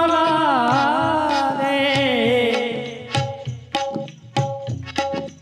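Kannada devotional folk song: a male singer holds and bends the last note of a line for about two and a half seconds, then the voice drops out and drum strokes with short repeated instrumental notes carry an instrumental interlude.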